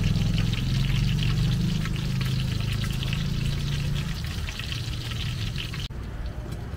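Battered bananas deep-frying in a wok of hot oil: a steady sizzle full of fine crackles over a low rumble. The sizzle drops away suddenly near the end.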